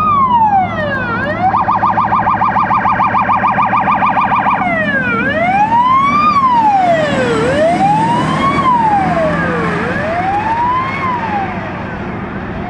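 Fire brush truck's siren, a tone sweeping up and down about once every second and a half, switching a second and a half in to a rapid warble for about three seconds and then back to the sweeping tone. The truck's engine runs underneath, and the sound eases off slightly near the end as it moves away.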